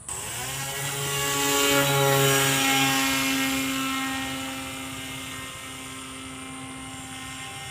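Electric motor and propeller of a foam RC airliner model (2212 1400kv brushless motor, 8x6 prop) running at flying power: a steady pitched whine that starts suddenly, grows louder over the first two seconds, then slowly fades as the plane flies away.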